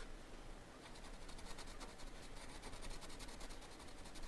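Graphite drawing pencil scratching faintly on paper in short repeated strokes, sketching fur.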